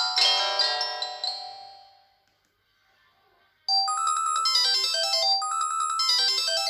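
Samsung SGH-ZV10 mobile phone playing its built-in tones through its speaker. A chiming multi-note melody dies away over the first two seconds. After a short silence a new melody starts, plays its phrase twice, and stops near the end.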